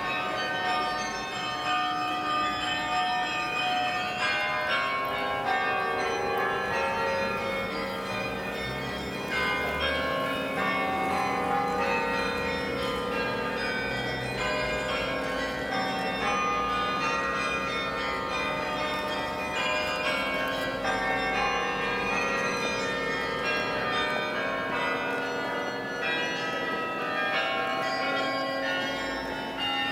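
Church bells of St. Peter's in Leuven ringing: many bells at different pitches struck in quick succession, their tones overlapping and ringing on without a pause.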